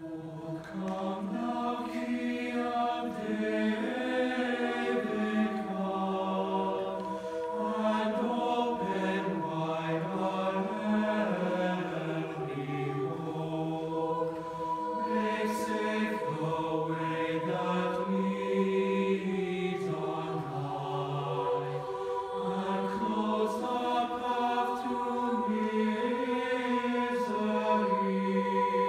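Mixed chamber choir singing a cappella in several parts, holding chords that change about every second.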